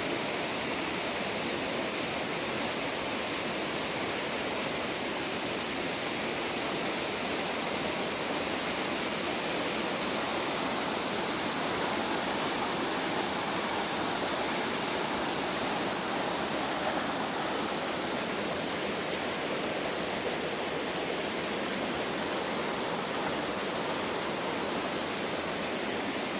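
Stream water flowing steadily, an even rushing noise with no breaks.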